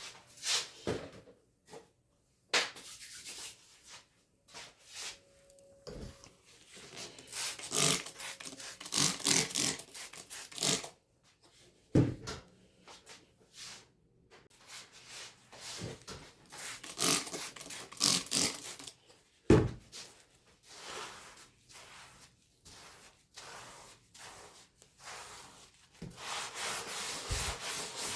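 Cleaning-up sounds: irregular rubbing and scrubbing strokes of varying length, broken by a few sharp knocks, the loudest about two thirds of the way through.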